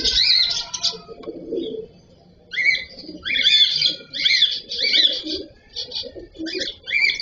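Cockatiels chirping: a run of short, rising-and-falling whistled calls, one at the start, then a quick series after a brief pause.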